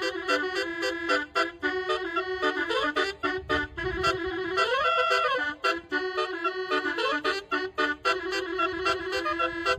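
Basuri telolet horn playing a fast melody in short, clipped notes, with one note that slides up and back down about halfway through.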